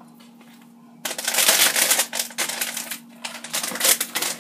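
An instant mashed potato packet crinkling and rustling as it is handled, a rapid crackle that starts about a second in and runs for about three seconds.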